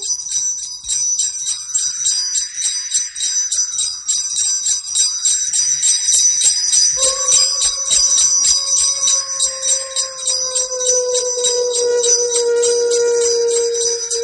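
Sleigh bells jingling in a fast, even rhythm. About halfway through, a long tone comes in and slowly falls in pitch.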